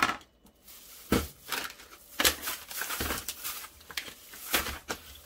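Plastic rustling and crinkling as shopping items are handled, in about five short bursts.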